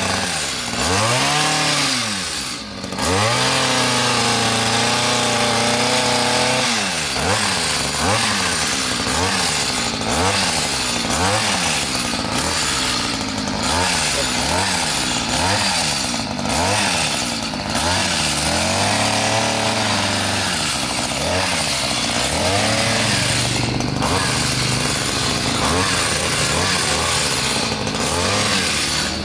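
Petrol hedge trimmer's small two-stroke engine running at high revs, the throttle squeezed and released so the engine note rises and falls again and again, about once a second through the middle, with a few stretches held steady at full speed while the blades cut the hedge.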